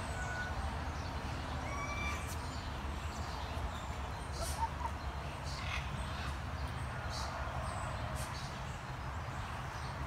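Outdoor ambience: a steady low rumble with scattered short, high chirps and squeaks from small animals.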